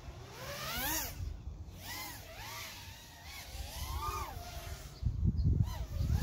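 3-inch toothpick FPV racing quad with RCX 1304 5000 kV motors flying, its motor-and-prop whine rising and falling in pitch in repeated swoops as the throttle changes. From about five seconds in, a low rumble comes in under it.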